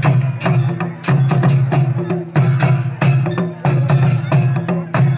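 Traditional Nepali folk drums beaten together in a steady, driving rhythm for the dance, with a sharp stroke about every half second over a deep drum beat.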